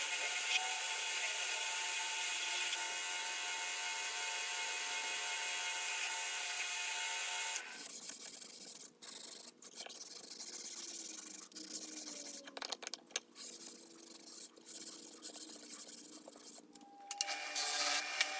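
A small power tool runs steadily for about seven and a half seconds while the steel screwdriver shank is being polished, then stops. It is followed by irregular stop-start abrasive rubbing and scraping strokes on the shank. The motor starts up again about a second before the end.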